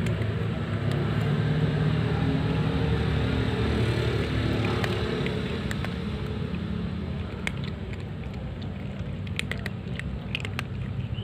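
A steady low motor rumble, strongest for the first five or six seconds and then easing off. Near the end come a few short, sharp clicks, which fit the cats crunching dry kibble.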